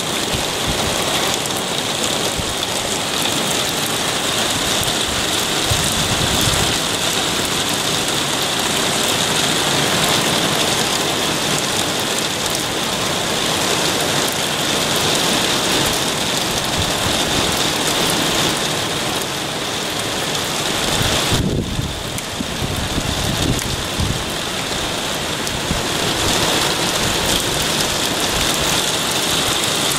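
Very heavy rain pouring down steadily, a dense hiss of rain on surfaces heard through an open window. Low rumbles come in about six seconds in and again around twenty seconds in.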